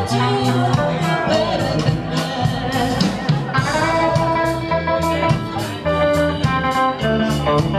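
Live rock band playing a song: electric guitar and bass over steady drum hits, with a woman singing into a microphone.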